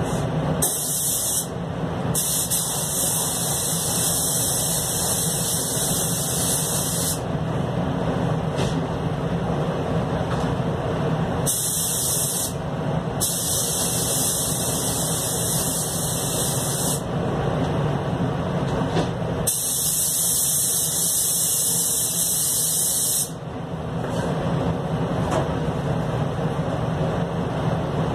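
Anest Iwata Classic Plus spray gun hissing in five separate bursts as its trigger is pulled and released, some about a second long and others four to five seconds, over a steady rumble of paint-booth air.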